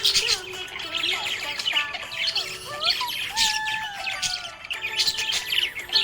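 Budgerigars chirping and chattering in quick, high-pitched runs, with music playing underneath.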